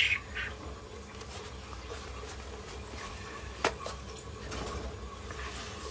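Quiet room tone with a steady low hum and a few faint clicks, the sharpest about three and a half seconds in.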